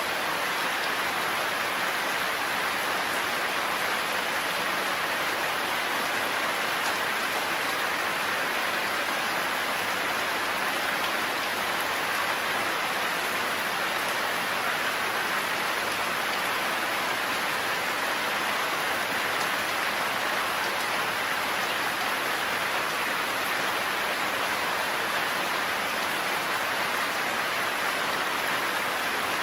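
Heavy, steady rain falling in a forest, an even hiss of rain on leaves and ground with no thunder.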